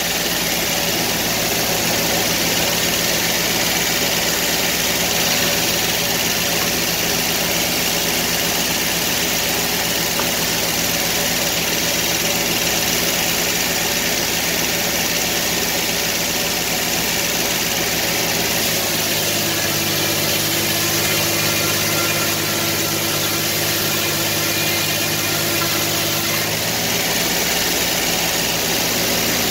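Sawmill engine running steadily. Its note changes for several seconds past the middle, then settles back.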